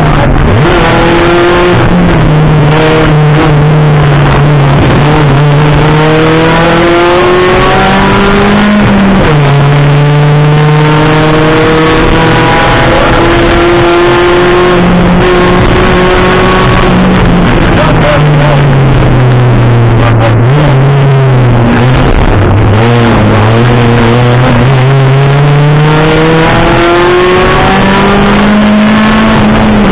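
Rally car's engine heard from inside the cabin, driven hard on a special stage: the engine note climbs under acceleration and drops at each gear change or lift, several times over, with constant road and tyre noise underneath.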